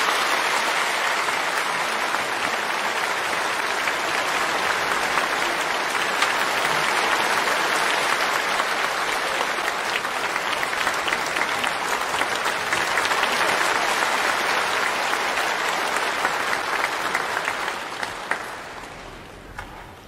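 A large seated audience applauding steadily, dying away near the end.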